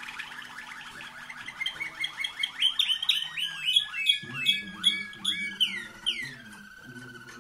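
Waterslager song canary singing: a fast rolling trill that turns into a run of loud, sharply falling notes about three a second, ending in a long downward glide that settles into a held whistle near the end.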